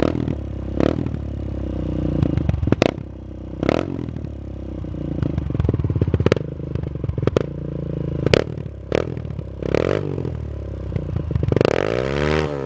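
Kawasaki KLX140L's small single-cylinder four-stroke engine running loudly through an FMF Powercore 4 slip-on exhaust, revved up and down several times, with the pitch sweeping up and back down near the end.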